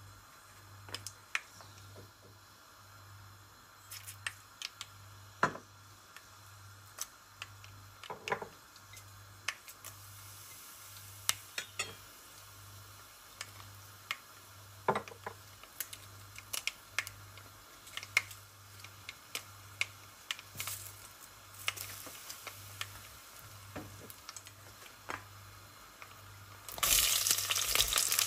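Mustard and fenugreek seeds popping and crackling in hot oil and ghee, with sharp pops scattered irregularly. Near the end a sudden, much louder sizzle starts as curry leaves and sliced onions hit the hot oil.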